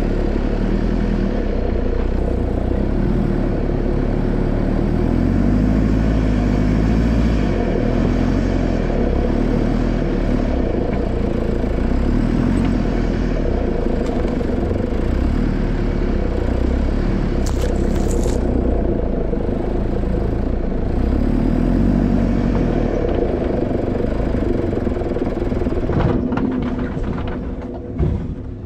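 Nissan Patrol Y61's 3.0-litre four-cylinder turbodiesel running at low revs as the 4x4 crawls up rocks, the engine note rising and falling a little with the throttle. A few sharp knocks come near the end as the engine note drops.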